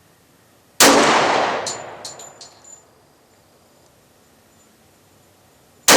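Two shots from a Glock 36 .45 ACP pistol in slow, deliberate fire, about five seconds apart, each followed by a long echoing tail. A few small high metallic tinks follow the first shot, like ejected brass casings landing.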